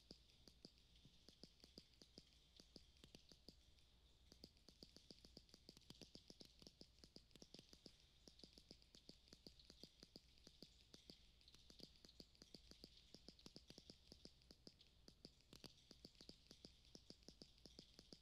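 Faint, fast, uneven clicking from small hand-held objects, with a high chirping twitter pulsing over it.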